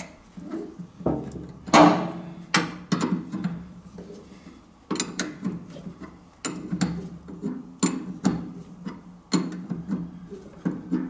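Steel spanner clinking and knocking against a nut in repeated sharp metallic clicks at uneven intervals, as the top nut of a classic Mini's rear damper is undone a little at a time.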